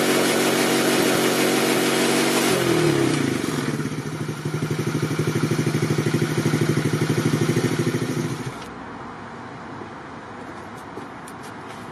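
Chinese ATV engine running at high revs, then the throttle is released and the pitch falls to a steady, pulsing idle. The engine goes quiet about eight and a half seconds in.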